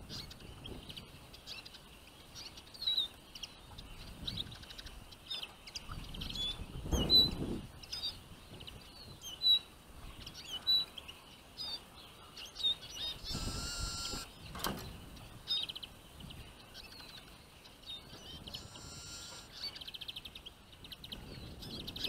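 Small finches chirping and twittering, many short high calls overlapping. There is a low thump about seven seconds in and a brief rustling burst near the middle.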